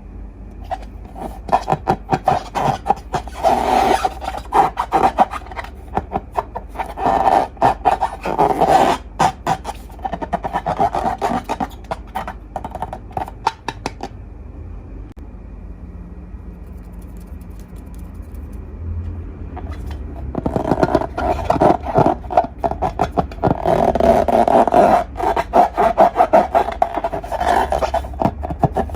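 Slime being squished and worked by hand: dense, sticky crackling and popping, in two long bouts with a quieter pause of several seconds between them.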